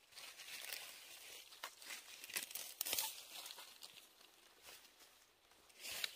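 Dry leaf litter rustling and crackling as a hand works among it on the ground, in uneven crackles that are loudest about two to three seconds in and again near the end.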